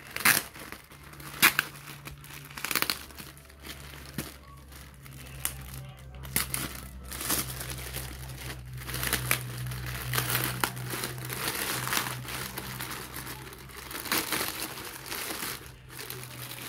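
Black plastic shipping mailer being torn open and crinkled by hand, a run of irregular rustles and crackles of plastic.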